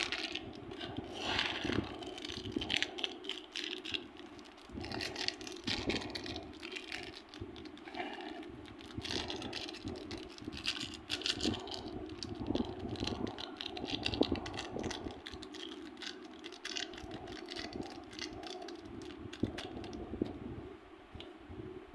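Hands squeezing, poking and stretching a soft craft compound such as slime or modelling clay. It makes a continuous run of irregular crackling clicks and small squishes.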